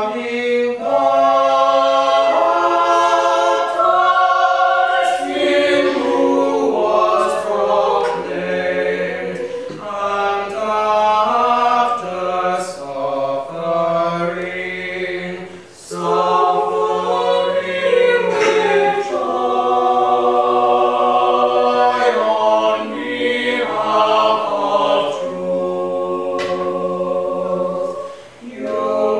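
Small mixed vocal ensemble singing slow, sustained chords in long phrases, with brief breaks between phrases.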